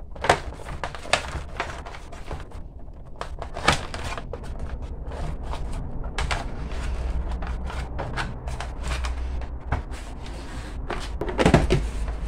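Electrical cords and their plugs being crammed into a hard plastic Makita angle grinder case, with scattered clicks and knocks of plugs against the plastic. Near the end the case lid is pressed shut with a louder clatter.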